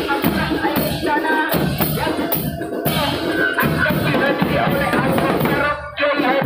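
Loud music with drums and a melodic line, playing continuously.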